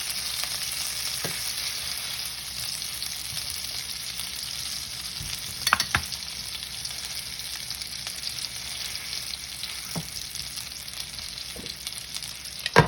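Ribeye steak searing in hot oil in a pan, a steady sizzling hiss. Sharp knocks cut in about six seconds in and again, louder, near the end.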